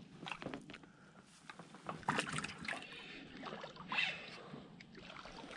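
Light splashing and dripping water with scattered knocks and clicks as a fish is landed into an aluminum solo canoe, with a couple of louder splashes about two and four seconds in.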